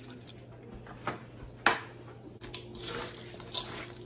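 Wooden spoon stirring a thick, wet hash brown and sour cream mixture in a stainless steel bowl: soft squishing with a few sharp knocks of the spoon or jug against the bowl, the loudest about halfway through.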